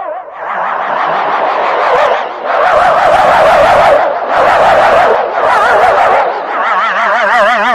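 Loud, distorted warbling alarm tones from a fan-made emergency-alert-style alarm, in several bursts with brief dips about two and a half, four and six seconds in.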